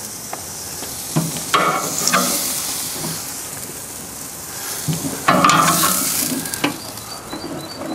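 Beef steaks sizzling on the hot grate of a Broil King gas grill as they are lifted off with metal tongs. A few sharp clicks and scrapes of the tongs on the grate come about a second in and again about five seconds in.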